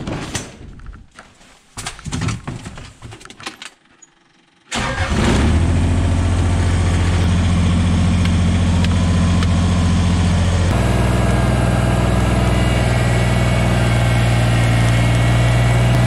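Knocks and rustling as the tractor's vinyl cab door is handled, then a Kubota BX compact tractor's three-cylinder diesel engine starts about five seconds in and runs steadily, stepping up to a faster idle a little past halfway through.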